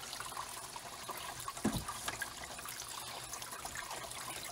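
Water trickling inside an AquaForte ATF-1 drum filter for a koi pond, a steady faint flow, with one soft bump a little before halfway.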